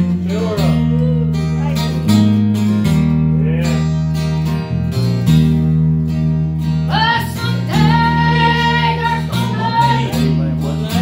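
Live gospel music: an electric bass guitar plays held low notes under strummed acoustic guitars, with singing that swells into a long held line about seven seconds in.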